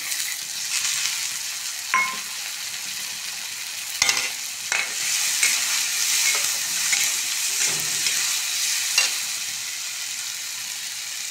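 Peas and vegetables sizzling in hot mustard oil and masala in an iron kadhai, stirred with a steel spatula that scrapes the pan. The spatula knocks sharply against the pan about four times.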